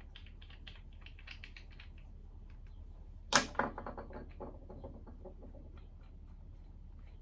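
Small metal parts clicking and rattling as they are handled, then one loud metal clank about three and a half seconds in that rings briefly as it fades.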